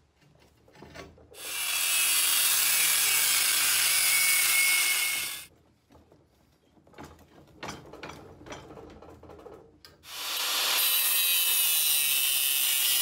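Angle grinder with a cutting disc cutting through a solid steel bar clamped in a vise, in two stretches of about four seconds each, the first starting about a second in and the second about ten seconds in. Between them come quiet knocks and handling of the metal.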